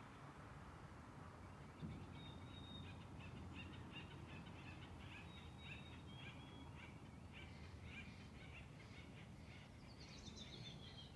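Faint songbird chirping over low steady forest background noise: a run of short high chirps starting about two seconds in, with a few thin whistles, and near the end a quick series of notes falling in pitch.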